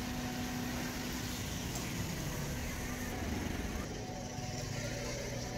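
A small car driving past on a wet street, over a steady background hum.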